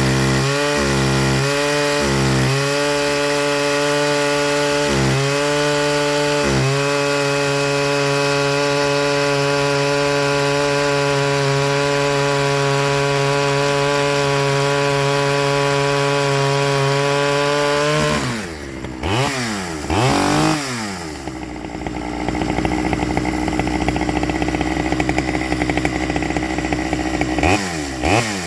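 Stihl 009 top-handle two-stroke chainsaw engine running at high speed, stuttering with quick dips about twice a second for the first few seconds before holding steady. About two-thirds of the way through the revs drop, surge twice and settle into a lower, rougher idle, with a couple of quick throttle blips near the end. It is running way too rich, which the owner puts down to the carburettor.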